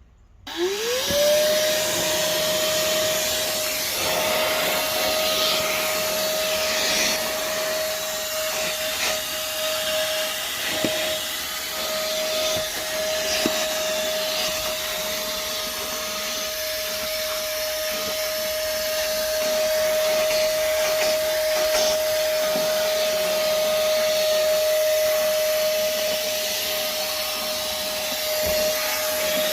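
Moosoo 18 V lithium-ion cordless shop vacuum switching on. Its motor whine climbs to speed within about a second, then runs steadily with a rush of air. Faint clicks are scattered through it.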